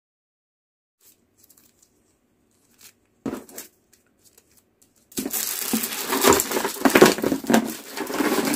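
A few light clicks and a short clatter of small plastic nail-kit items being handled, then from about five seconds in a loud, continuous rustling and clattering as plastic packaging and items are packed into a cardboard box.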